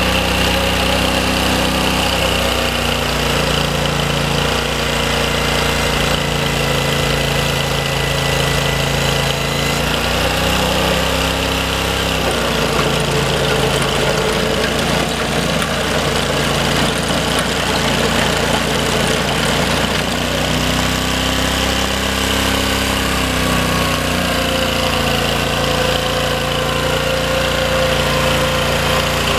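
Ditch Witch 1820 walk-behind trencher's small engine running steadily, its pitch shifting down and up a few times.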